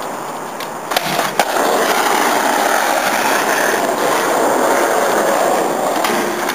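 Skateboard wheels rolling steadily over hard pavement, with a couple of sharp clacks of the board about a second in.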